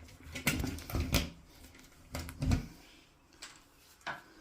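A series of irregular knocks and clicks of hands working on electrical wiring, clustered in the first half and again about two and a half seconds in.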